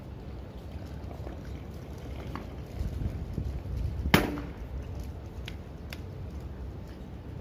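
Low wind rumble on the microphone, with one sharp clack about four seconds in and a couple of fainter clicks after it.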